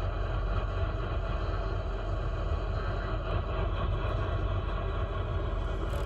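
Steady low rumble and hiss in a car cabin, with the car's AM radio on 1500 kHz turned down low and carrying no speech.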